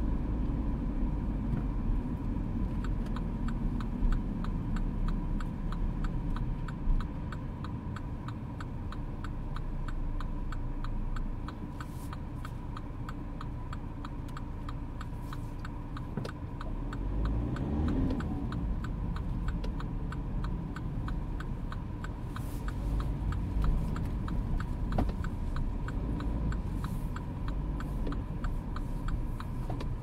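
Inside the cabin of a Mini Clubman: low engine and road rumble, with evenly spaced ticking, like a turn-signal indicator, starting a few seconds in and running on almost to the end. The rumble eases off for a few seconds mid-way, then picks up again.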